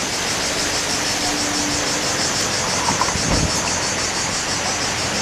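Steady rush of a waterfall, an even roar of falling water, with a fast-pulsing high buzz over it and a brief low thump a little past three seconds in.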